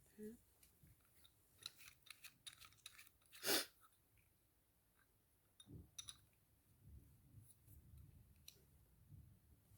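Faint scattered clicks and taps from parts and packaging being handled during an unboxing and assembly, with one louder brief rustle about three and a half seconds in.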